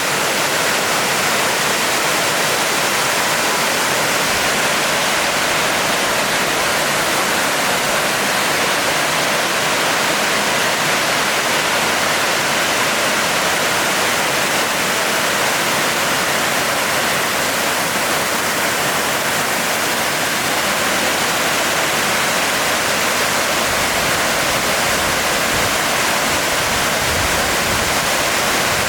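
Waterfall pouring steadily, an even rushing hiss of falling water with no breaks.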